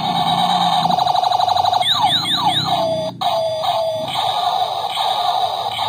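Battery-powered light-up toy space pistol playing its electronic sound effects: a fast warbling siren-like tone, then a run of quick falling laser-style sweeps about two seconds in, interrupted by a single click, and warbling with falling sweeps again after.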